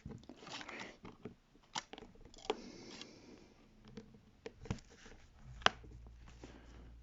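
Tablet screen being pried out of its plastic housing: scattered sharp plastic clicks and snaps with light scraping in between.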